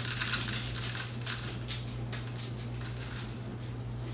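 Dry oats shaken out of a cardboard canister into a small plastic container on a kitchen scale: a light, gritty rustle in short spurts, heaviest in the first two seconds and then trickling more faintly.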